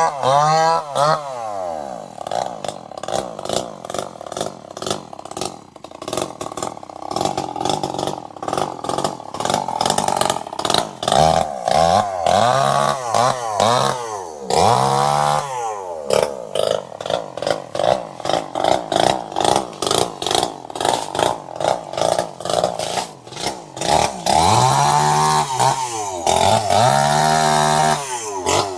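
Chainsaw engine running and being revved, its pitch repeatedly rising and falling in quick swoops, with a few stretches of steadier running between.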